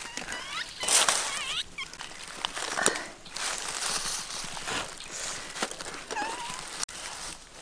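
Dry straw and bamboo leaves rustling and crackling as eggs are lifted from a ground nest, with short chirping calls about a second in and again near six seconds.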